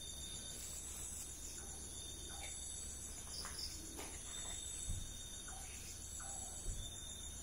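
Crickets and other insects trilling steadily in several high pitches, a night-time insect chorus. A couple of faint soft thumps come about five and seven seconds in.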